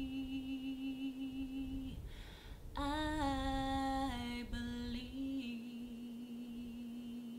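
A woman singing a cappella, gospel style, holding long notes with vibrato. About two seconds in she takes a breath, then comes back on a louder note that steps down in pitch and is held.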